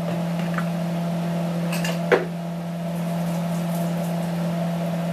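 Steady low machine hum of a kitchen appliance, with a single light knock of the spoon against the pot about two seconds in.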